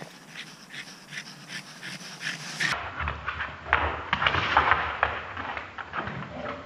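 A dog panting in quick, even breaths, about two and a half a second. About three seconds in, this gives way to two Staffordshire-type dogs, an Amstaff and a Staffy, play-fighting on a wooden floor, with scuffling, claws clicking and bumps, loudest in the middle.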